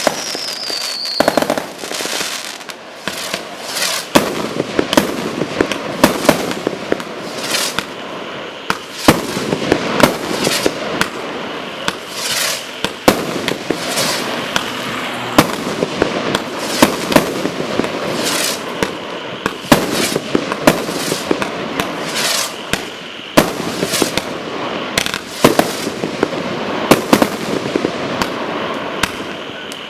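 Firework cakes and barrages firing continuously: rapid, irregular sharp bangs over dense crackling. A falling whistle fades out about a second in.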